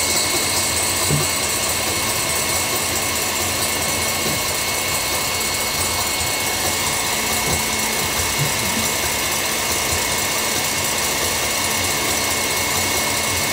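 Electric stand mixer running steadily with a constant high whine, its whisk whipping aquafaba (chickpea cooking liquid) into a foam the way egg whites are beaten.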